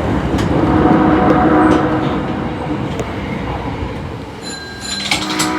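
Osaka Metro 22 series subway train running through, a loud rushing rumble that peaks about a second in and then eases off. Near the end a few clicks, then a steady pitched horn tone starts.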